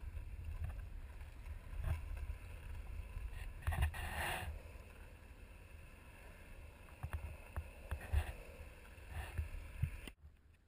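Longboard wheels rolling over asphalt as a deep, steady rumble, with wind on the microphone, scattered knocks and a brief hiss about four seconds in; the sound drops away suddenly near the end.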